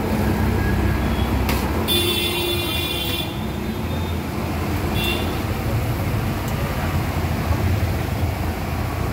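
Steady road traffic noise, with a vehicle horn honking for about a second around two seconds in and a brief, fainter toot a few seconds later.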